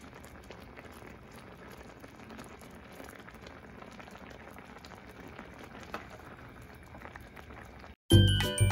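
Capcay cooking in a pan: a soft, steady bubbling and hissing with a few small pops. Loud upbeat music starts abruptly near the end.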